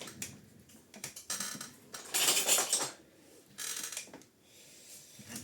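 Small metal tools and parts clattering and clinking as they are handled, in several short rattling bursts, the loudest lasting about a second midway through.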